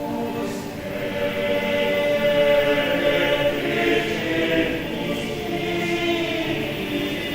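A choir singing in parts, many voices holding and moving between sustained notes, swelling a little in the middle.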